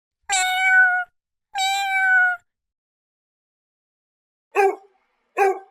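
Domestic cat meowing: two long, drawn-out meows that drop slightly in pitch at the end. Near the end come two short, sharp animal calls, a second apart.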